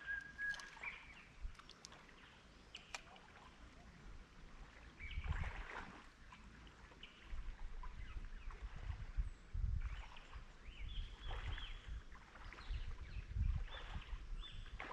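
Birds chirping over an uneven low rumble that comes in bursts, with a few sharp clicks in the first few seconds.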